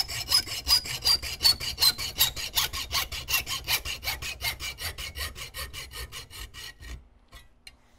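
Hand hacksaw cutting metal in rapid, even strokes to rough out a replacement part. A ringing tone from the blade and workpiece slides steadily down in pitch as the cut goes on. The sawing stops about seven seconds in, leaving a few faint clicks.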